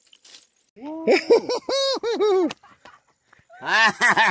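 People whooping in excitement: a run of four or five loud rising-and-falling "woo" hoots, then another excited cry near the end.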